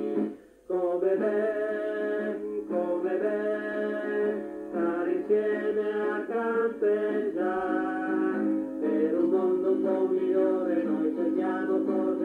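Music of a scout camp song: a melody with singing over a steady accompaniment. It drops out briefly about half a second in.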